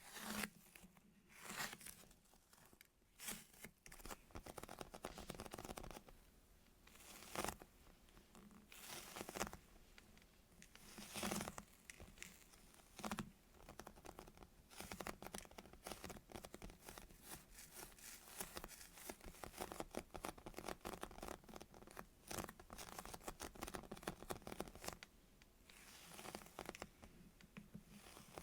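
Foam squishy toys being squeezed and rubbed close to the microphone: soft, separate scratchy strokes, then a dense run of fine crackles from about halfway in until near the end.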